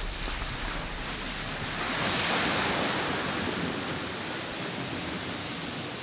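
Surf washing onto a sandy beach: an even rush of noise that swells about two seconds in and then eases off.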